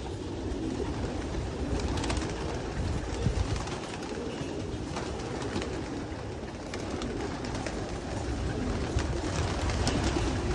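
A loft full of racing pigeons cooing steadily together, with scattered short clicks and wing flaps as birds shift about and take off, more of them near the end.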